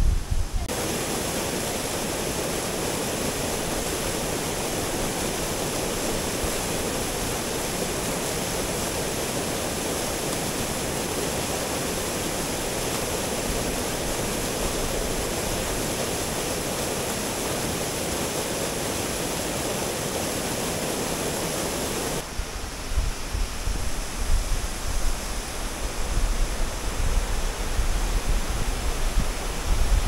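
Waterfall rushing with a steady, even roar. About two-thirds of the way through, the rush suddenly thins and uneven low rumbling comes in.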